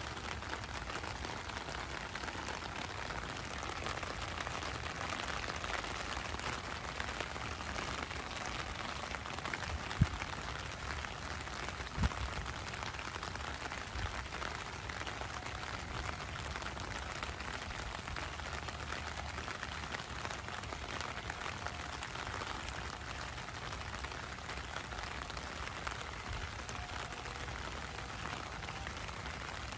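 Steady heavy rain falling on a wet street, an even hiss of drops. Two brief low thumps land about ten and twelve seconds in, the first the loudest.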